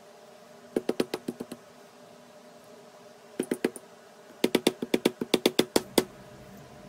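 Small hammer tapping the metal rivets into the wooden stock of a carpenter's square, in three runs of quick taps, each with a short metallic ring.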